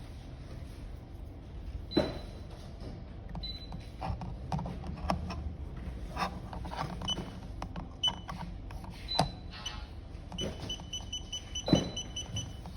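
A gadget and its packaging being handled, with scattered clicks and knocks. Near the end comes a quick run of short, high electronic beeps.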